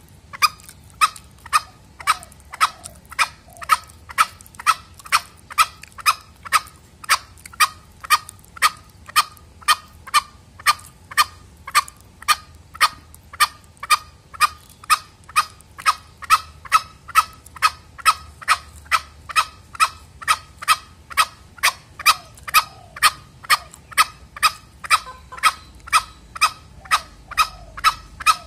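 Male green junglefowl giving a steady run of short, sharp clucking calls, about two a second, evenly paced and unbroken: the call used as a lure for hunting or for training other junglefowl.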